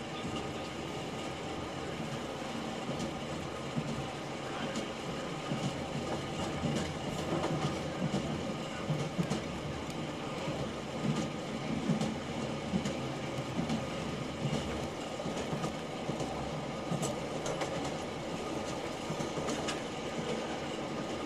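Railway passenger carriage rolling along the track: a steady rumble of the wheels on the rails, with scattered irregular clicks and knocks.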